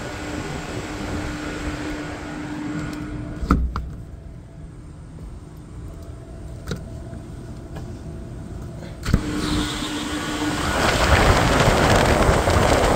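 Rooftop make-up air unit running: a steady fan hum with a low tone, broken by a knock about three and a half seconds in, after which it drops quieter. A second knock comes near nine seconds, the hum returns, and a loud rush of moving air fills the last couple of seconds.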